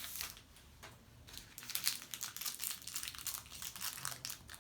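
Crinkling and crackling of toy packaging being unwrapped by hand, sparse for the first second and then steady quick crackles.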